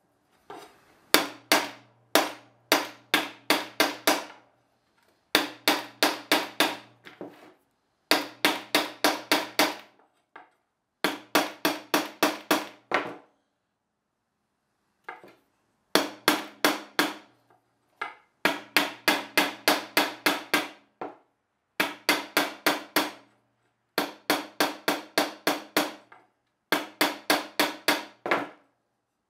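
Claw hammer tapping the end of a half-inch copper pipe on a workbench, squeezing it down into a narrower tip. Quick runs of sharp blows, about four a second, in bursts of one to two seconds with short pauses between them.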